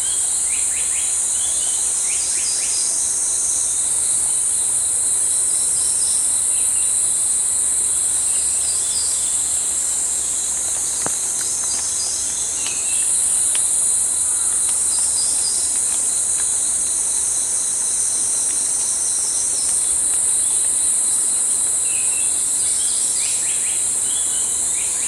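A steady, loud, high-pitched drone of forest insects, which steps up about halfway through. Short bird calls break in near the start, about halfway and near the end, in keeping with the Japanese paradise flycatcher's song.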